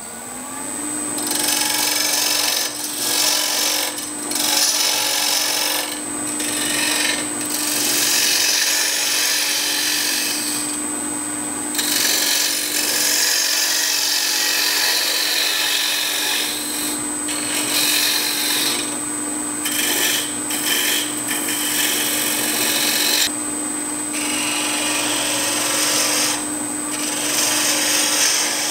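A Robust Scout wood lathe comes up to speed with a hum that rises in pitch in the first second, then holds steady. Over it, a spindle gouge cuts a cove into the spinning wooden handwheel: a rushing hiss of shavings that starts and stops with each pass. A thin high whine runs throughout.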